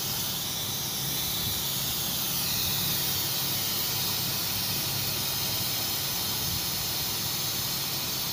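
Refrigerant hissing steadily out of the open end of a car air-conditioning charging hose: the system, still charged with gas, is being emptied before its compressor, condenser and expansion valve are replaced.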